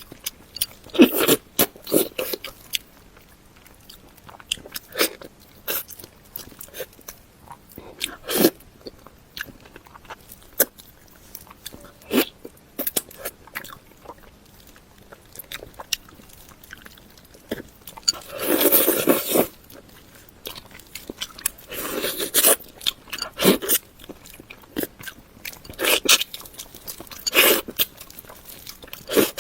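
Close-up eating sounds from a steamed salmon head: irregular chewing, biting and mouth clicks, with one longer noisy burst lasting about a second around two-thirds of the way through.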